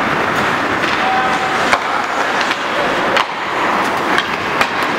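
Ice hockey play on a rink: skate blades scraping and hissing on the ice, with sharp clacks of hockey sticks striking the puck or each other several times.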